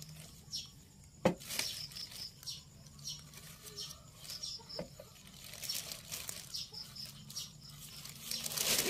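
Clear plastic sheeting and dry leaf litter rustling and crinkling as hands pick straw mushrooms from the bed, with a sharp snap about a second in and louder crinkling near the end as the plastic is lifted. An insect chirps in short trains of quick high pulses, repeating every second or so.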